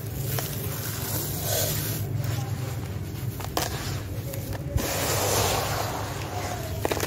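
Crumbled dry sand-cement and grit poured from the hands back into a tub: a steady gritty hiss of falling grains with a few small clicks, broken by two short pauses, over a low steady hum.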